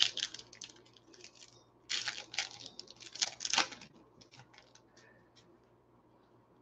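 Foil wrapper of a baseball trading-card pack crinkling and tearing as it is ripped open, a short crackle at the start and a longer one about two seconds in, followed by a few faint ticks.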